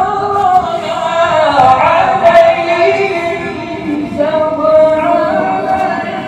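A man's voice in melodic Quran recitation (tilawat), drawing out long held notes that bend in pitch. One phrase ends about four seconds in and the next begins at once.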